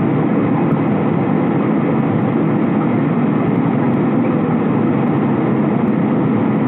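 Steady cabin noise inside a jet airliner in flight: engine and airflow noise as an even, unchanging rushing sound, heaviest in the low range.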